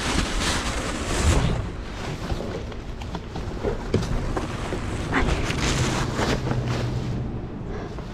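Plastic trash bags rustling and items shifting and knocking inside a dumpster as a heavy bag is hauled out, with wind-like noise on the microphone.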